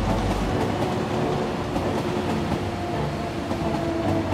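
Taiwan Railway electric commuter train running past on the tracks, a steady rumble of wheels on rail with a faint whine that slowly edges down in pitch.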